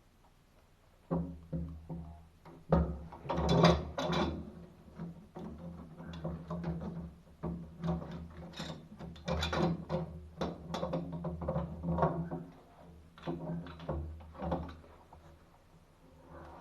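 Irregular knocks, clanks and scrapes of tools working on metal pipework and an old valve fitting while it is being loosened for removal.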